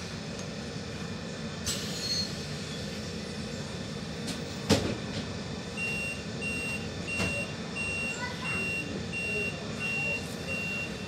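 Inside a BN coast tram: steady running noise, a single sharp knock about halfway through, then a steady series of high electronic beeps, about two a second, from the tram's warning signal.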